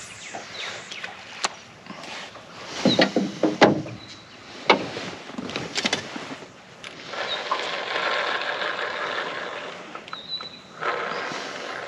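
Knocks and clicks of fishing gear being handled aboard an aluminium tinny, loudest about three to four seconds in. Later comes a rushing hiss lasting about three and a half seconds.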